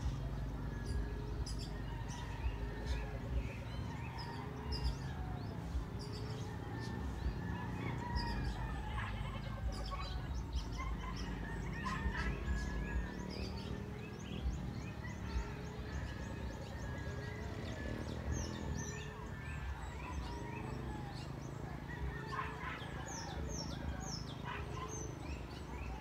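Emerald dove call, a low hoot repeated about once a second, over many small birds chirping and whistling higher up.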